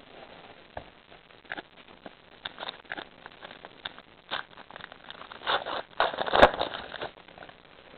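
Crinkling and rustling of a baseball card pack's wrapper and cards being handled, as a trading card pack is torn open. It comes as scattered short crackles that grow thicker and louder in the second half.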